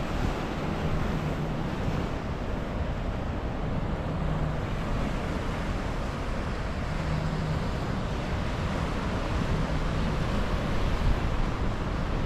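Ocean surf washing and breaking against the jetty rocks, a steady rush of water, with wind buffeting the microphone.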